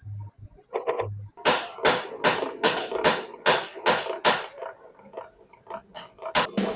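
A run of about eight sharp strikes, roughly two a second, with quiet between each, then a few more scattered knocks near the end. This is hammering, typical of tapping parts into place during an engine rebuild.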